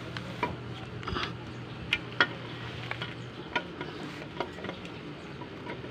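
Metal timing cover of a Nissan GA16 engine being handled and seated against the block: about ten light, irregular clicks and taps of metal on metal.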